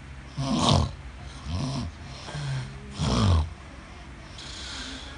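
A man snoring: four loud snores in quick succession, then a softer breathy exhale near the end.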